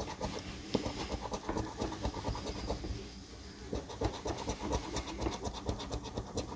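A large coin scratching the coating off a paper scratch-off lottery ticket in quick, short strokes, easing off briefly about three seconds in.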